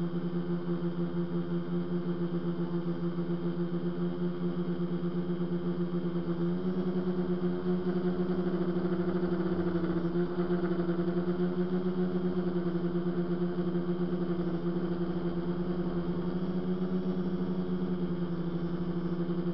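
Multirotor tricopter's electric motors and propellers humming steadily in flight, with a pulsing beat in the loudness. The pitch steps up slightly about six and a half seconds in.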